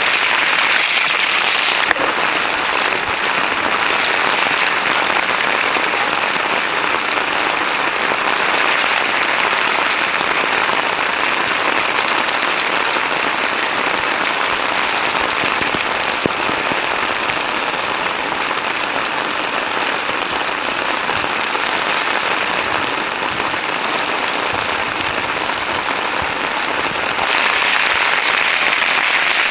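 Heavy monsoon rain falling steadily on a flooded street, an even hiss that grows a little louder near the end.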